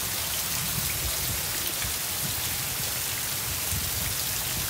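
Heavy rain pouring steadily onto a waterlogged lawn and standing puddles, a dense, even hiss of falling drops.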